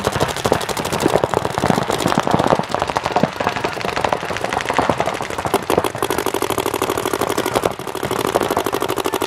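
Several paintball markers firing fast strings of shots at once, a dense, unbroken run of sharp pops, the opening burst of fire as a speedball point breaks off the start. The fire eases briefly near the end, then picks up again.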